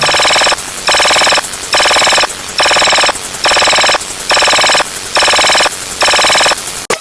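Electronic ringing sound effect pulsing on and off, eight buzzy rings at a little over one per second, ending with a sharp click.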